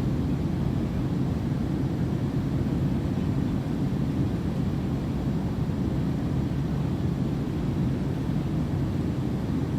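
Airplane cabin noise heard from inside: a steady low rumble of engine and airflow with a constant low hum, unchanging throughout.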